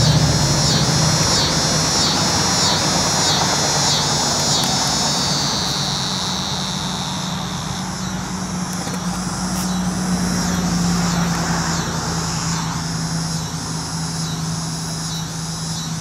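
Cicadas singing: a high, pulsing buzz at about three pulses a second that runs into a steady buzz about five seconds in and fades by about eight seconds, with a fainter pulsing buzz continuing after. A steady low hum runs underneath.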